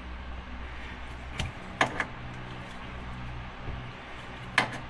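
A few sharp clicks and knocks from hand tools: one about a second and a half in, two close together around two seconds, and one near the end.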